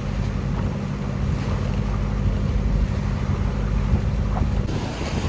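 Catamaran yacht under way at sea: a steady engine hum with wind on the microphone and rushing water. The hum cuts off abruptly near the end.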